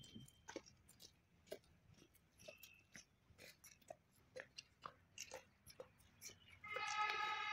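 Marching footsteps, shoes striking paving stones in a run of faint, sharp clicks. Near the end a steady pitched tone is held for about a second, louder than the steps.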